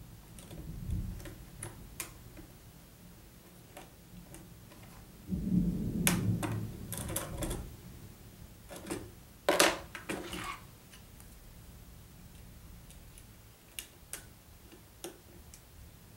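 Lego bricks clicking and clattering as pieces are handled and pressed together on a tabletop: irregular sharp clicks, busiest in the middle, with a low rumble in two short stretches.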